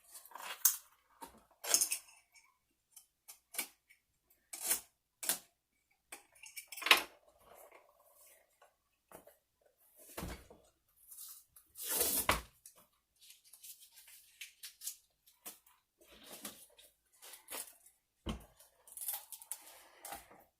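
Goldhog rubber sluice mat being handled and worked apart by hand: scattered sharp clicks, knocks and scrapes, irregular and unpatterned, with a couple of louder knocks about seven and twelve seconds in.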